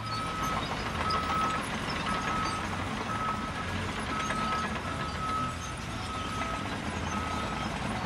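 Vehicle reversing alarm beeping about once a second over a steady engine rumble, the sound of a truck backing up.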